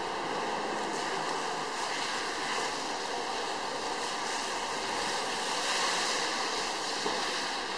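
Steady rushing background noise with no distinct sounds standing out.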